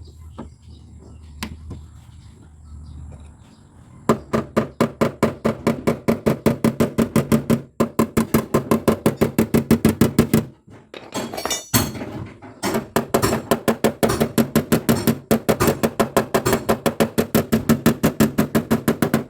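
Hammer rapidly knocking on a car's dented body metal, about five ringing blows a second, in two long runs with a short scraping noise between them.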